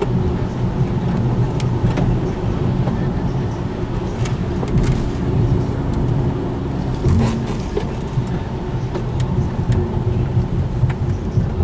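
A car driving slowly, heard from inside: a steady low engine and road rumble, with scattered sharp clicks and knocks from sticks and twigs striking the car's underside.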